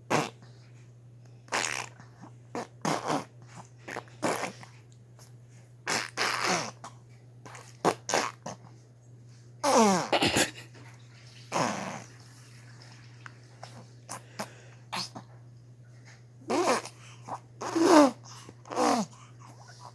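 A person making funny vocal noises in short bursts with pauses between: some noisy and breathy, several squeals that slide down in pitch.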